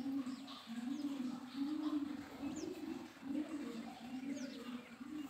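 A pigeon cooing: a steady run of low, rounded coos, about two a second, with a couple of faint, brief high-pitched bird chirps.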